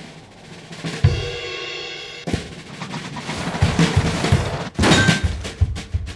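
Layered drum-kit percussion: a heavy bass-drum hit about a second in, a sharp strike a second later, then a run of drum and snare hits that grows denser toward the end.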